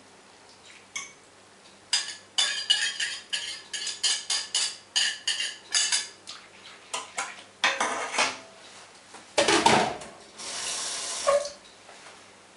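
Wire whisk clinking and scraping rapidly against the inside of a stainless steel pot as grated soap and washing soda are stirred into water. About nine seconds in comes a louder knock, then a second of hissing noise.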